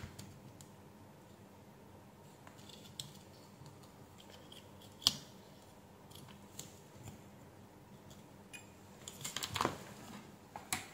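Faint clicks and taps of multimeter test-probe tips against components and solder joints on a circuit board, with one sharper click about five seconds in and a short run of handling noise near the end as the probes are put down.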